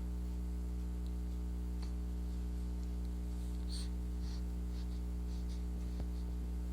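Steady low hum with a few faint, soft clicks and rustles.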